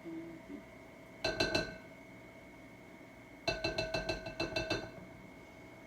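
A kitchen utensil clinking rapidly against a ringing container. There is a short run of about four clinks a little over a second in, then a longer run of about eight clinks from about three and a half seconds in.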